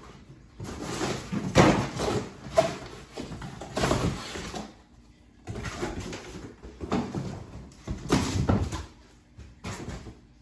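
Packaging being handled while toilet parts are unpacked: crinkling plastic and cardboard rustling in several bursts with short pauses, loudest about one and a half seconds in.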